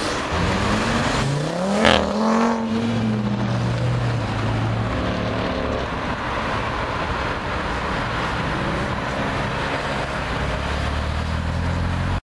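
Performance cars, Audi RS3 hatchbacks among them, driving off with their engines running. About two seconds in, one car's engine note climbs sharply and falls away again as it goes past, the loudest moment. A steady engine drone follows and then cuts off suddenly near the end.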